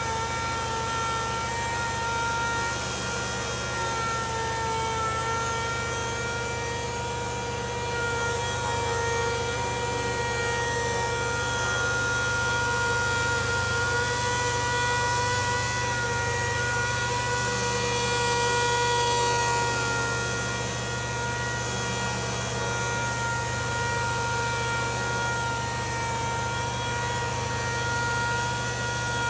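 DeWalt DWMT70781 pneumatic palm sander running on a wooden board: a steady whine whose pitch wavers slightly, over a hiss, as the pad sands the wood.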